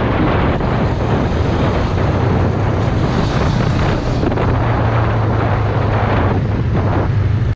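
Sport motorcycle riding along at a steady pace: heavy wind noise on the camera's microphone over a steady low engine note.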